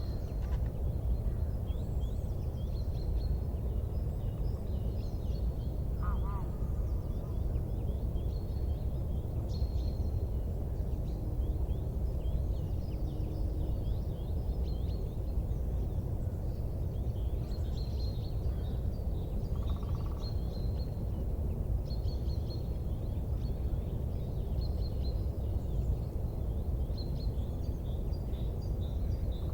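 Small birds chirping and twittering on and off over a steady low rumble, with a brief lower call about six seconds in and again about twenty seconds in.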